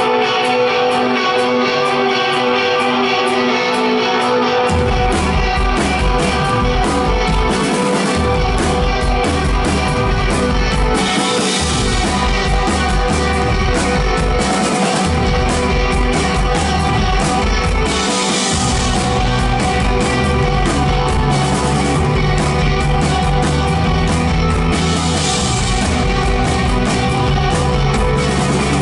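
Live rock band playing loudly through a venue PA, heard from within the crowd. Electric guitar carries the opening alone, then bass and drums come in about five seconds in, with cymbal crashes washing over it several times.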